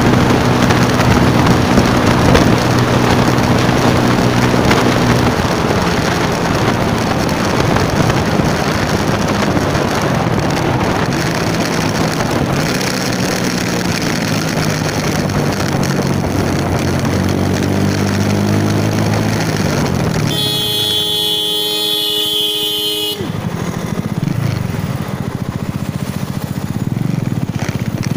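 Motor scooter being ridden through traffic, its engine note rising and falling as it speeds up and eases off, under steady rushing noise. About two-thirds of the way through, a horn sounds in one steady blast of about three seconds.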